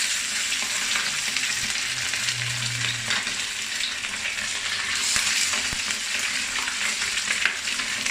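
Marinated, flour-coated chicken pieces deep-frying in hot oil: a steady, loud sizzle with crackling.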